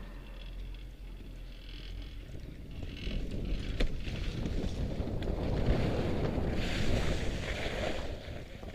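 Skis sliding and scraping over packed snow as the skier runs down a chairlift unload ramp, with wind rushing on the camera microphone; it grows louder and rougher about three seconds in, with one sharp click shortly after.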